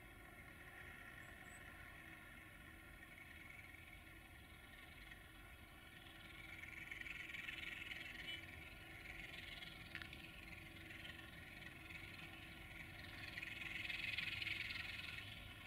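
A Romanian 060-DA (LDE2100) diesel-electric locomotive with a Sulzer 12-cylinder engine, running faintly as it approaches slowly. Its sound swells twice, about seven and fourteen seconds in, and there is one sharp click near ten seconds.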